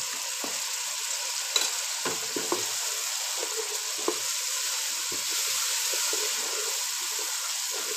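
Chopped tomatoes and onions frying in hot ghee in a pot, sizzling steadily, while a wooden spatula stirs the mixture with scattered short scrapes and knocks against the pot.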